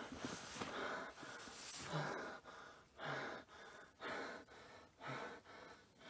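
A person breathing heavily off-camera, with a breath about once a second, several of them starting with a short voiced catch. The breaths are faint.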